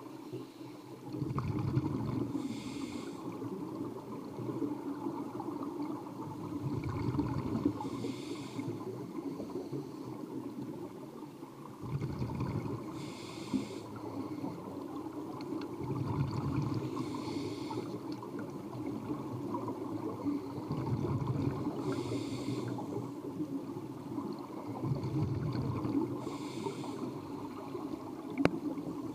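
A diver breathing through a scuba regulator underwater: about six slow breath cycles, each a short hiss with a low rumble of exhaled bubbles, roughly every five seconds.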